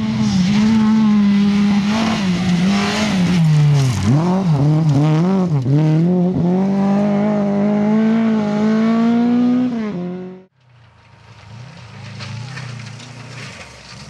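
Lada rally car's four-cylinder engine revving hard, its pitch dipping sharply several times in the middle, then holding and slowly rising. It cuts off suddenly about ten and a half seconds in, and a second rally car's engine follows, fainter.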